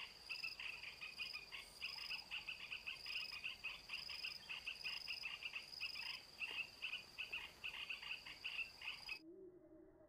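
High, rapid chirping calls over a steady high-pitched ring. It starts suddenly and cuts off abruptly about a second before the end, an added recording laid over the scene.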